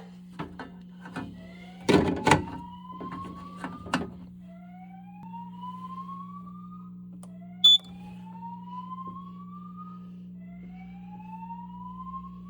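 Fire alarm voice-evacuation speaker sounding a whoop tone: a tone that rises in pitch over about two and a half seconds, four times in a row, over a steady low hum. Several loud knocks come about two seconds in, and a sharp click comes a little past halfway.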